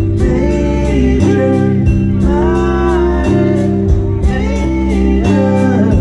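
Live band playing a song with amplified sung vocals over electric guitar, keyboard and a steady drum beat.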